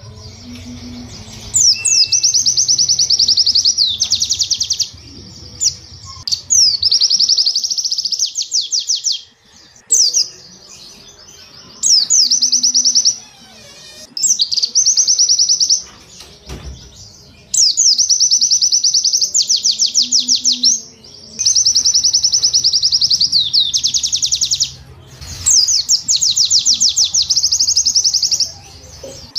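White-eye (pleci) song in repeated bursts of rapid, high-pitched notes: the 'cap cap cap' and 'wit wit wit' shots. Each burst lasts one to three seconds, some open with a quick downward sweep, and short pauses come between them.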